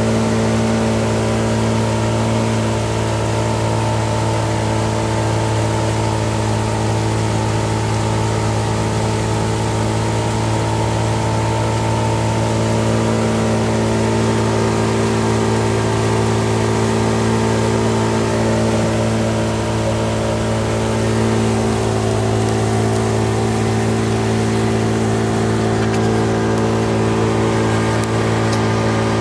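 Pontoon boat's engine running at a steady speed, a constant drone that does not change in pitch.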